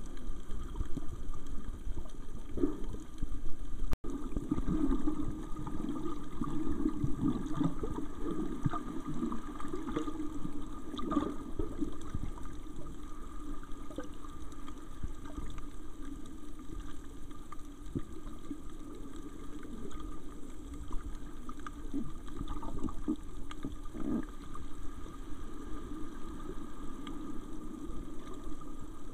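Low, steady rush and gurgle of water picked up by a camera held underwater, with scattered faint clicks.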